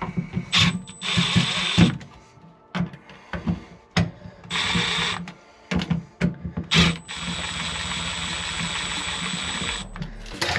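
Milwaukee cordless screwdriver backing screws out of an electrical receptacle cover plate. It runs in three spurts, the last and longest about three seconds, with clicks and knocks of the tool and plate between them.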